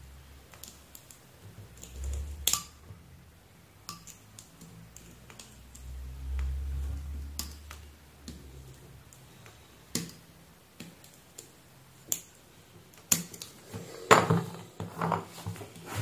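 A small metal blade scraping and picking at the blue insulation wrapped around a small transformer's winding, giving scattered sharp clicks and scratches that are busiest near the end. Two dull low thumps come from handling the transformer.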